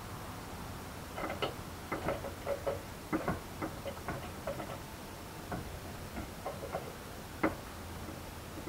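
Light, irregular metallic clicks and taps as the layshaft and its washers are worked into a Reliant Robin four-synchro gearbox casing by hand, over a low steady hum.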